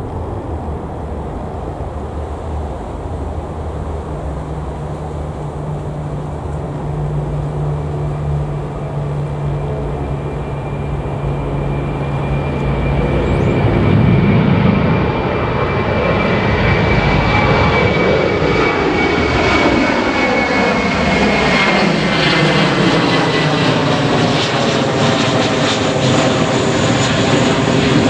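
Airbus A321-231's IAE V2500 turbofan engines at takeoff power, a steady jet roar that grows louder about halfway through as the airliner climbs out overhead. A high whine slowly falls in pitch as it passes.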